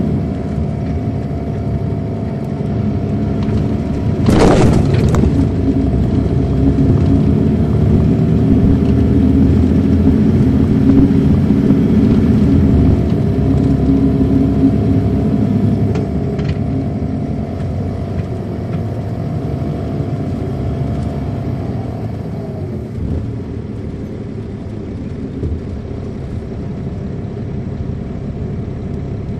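Inside a 2007 MCI D4500CL coach under way: its Caterpillar C13 ACERT diesel engine and Allison B500 automatic transmission running as the bus drives. The engine pitch holds steady, then drops a little after twenty seconds as the bus eases off. There is a brief loud burst of noise about four seconds in.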